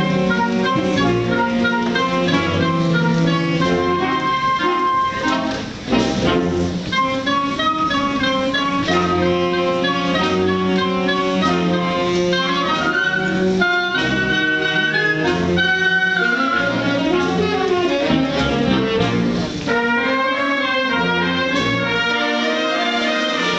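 Concert wind band playing live, brass and woodwinds together in sustained chords and melody lines. The band breaks off briefly about six seconds in, then comes back in sharply.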